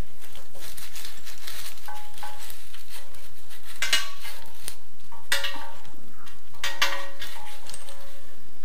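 Metal fittings of a chrome mixer tap and its braided steel flexible hoses clinking and scraping against a washbasin as they are fed through the tap hole, with three sharper metallic knocks that ring briefly, about four, five and a half and seven seconds in.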